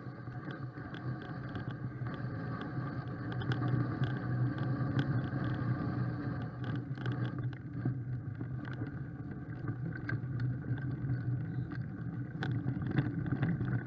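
Mountain bike rolling along a leaf-covered dirt track, heard from a camera mounted on the bike: a steady low rumble of tyres and frame, with frequent small clicks and rattles.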